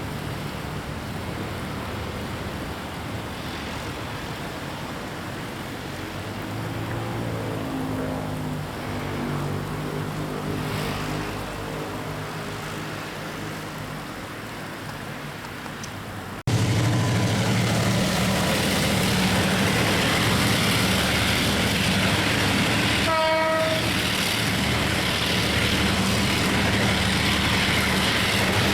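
A Taiwan Railway passenger train running by with a steady, loud rumble, and one short horn toot partway through. Before that, after an abrupt cut, comes a quieter engine hum that rises in pitch.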